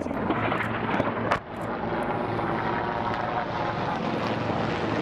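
Helicopter running steadily overhead, rotor and turbine noise with a faint held whine. A single sharp click about a second and a half in.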